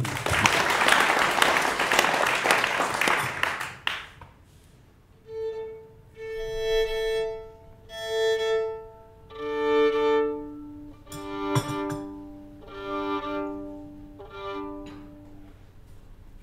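Audience applause for about four seconds, then a violin playing a slow phrase of long held notes, moving to lower notes in the second half and fading away near the end.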